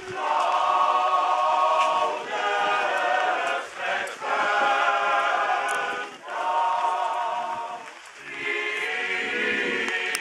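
Church choir singing a hymn unaccompanied, in several held phrases with short breaks between them.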